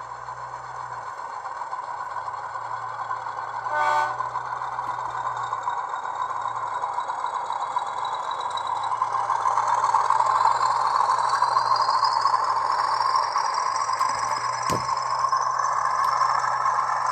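DCC sound decoder in an HO scale SAR 900 class diesel model playing its engine sound through the model's small speaker, with a short horn toot about four seconds in. The engine sound then builds as the locomotive pulls away, with a rising whine, and there is one click near the end.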